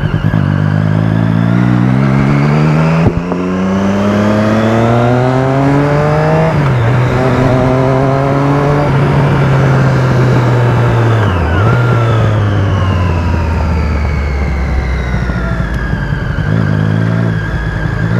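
Vehicle engine accelerating through the gears: the pitch climbs, drops at a gear change about three seconds in, climbs again to another change a few seconds later, then holds a steady cruise with a brief dip partway through and eases off near the end.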